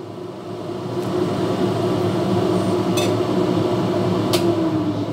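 Steady hum of a kitchen appliance's electric motor, with two short clicks partway through; near the end its pitch sinks as it winds down.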